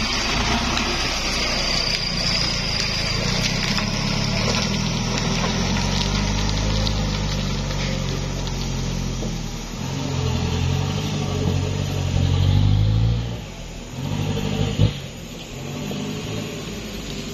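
Light dump truck's diesel engine pulling hard up a slippery mud incline, its revs rising and falling under load, then easing off about thirteen seconds in; a single sharp knock near the end.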